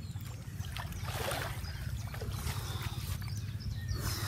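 Pond water splashing and sloshing as a man wades waist-deep and moves his arms and legs through it, in a few separate splashes about a second in, midway and near the end. A steady low rumble runs underneath.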